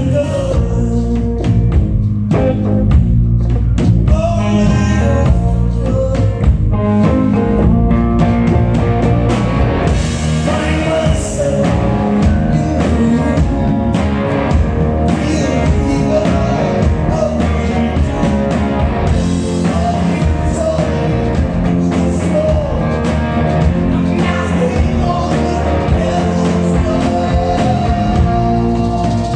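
Live blues-rock band performing on two electric guitars with bass and drums, a man singing lead over them.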